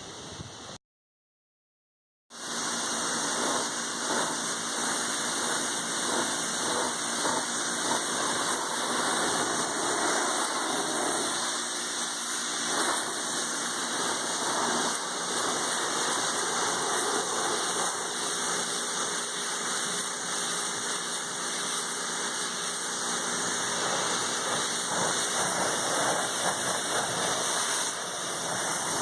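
Pressure washer running, its water jet spraying in a steady hiss with the machine's motor droning underneath, washing degreaser and grime off a tractor. The sound cuts out completely for about a second and a half just after the start.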